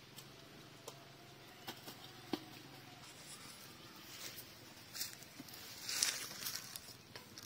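Ostriches pecking at leafy greens in a metal feed bowl: scattered sharp clicks and pecks, with a brief rustle about six seconds in.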